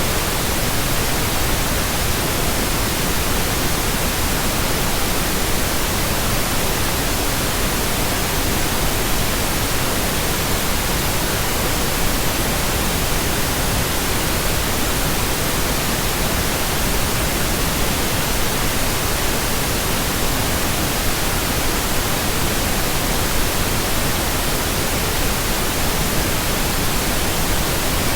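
Electronically generated pink noise: a steady, unchanging hiss spread evenly from low to high pitch.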